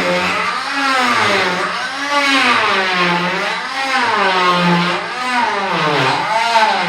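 Rockwell oscillating multi-tool cutting, its motor whine with a buzzing edge rising and falling in pitch about once a second as the blade is loaded and eased in the cut.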